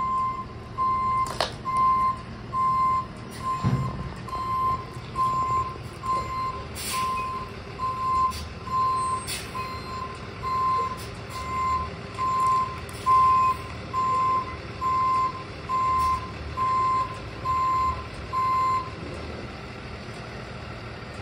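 Back-up alarm of the CrushR dumpster grinder truck beeping steadily at a little over one beep a second as it reverses, over the truck's engine running. There is a knock about four seconds in, and the beeping stops near the end.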